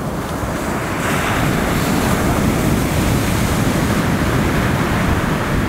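Ocean surf breaking on a sandy beach: a steady, loud wash of waves that swells about a second in.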